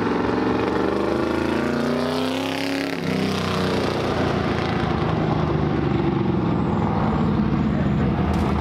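Vintage race car engine running loud as the car drives past on the track. Its pitch falls over the first few seconds as it goes by, then it runs on at a steady note.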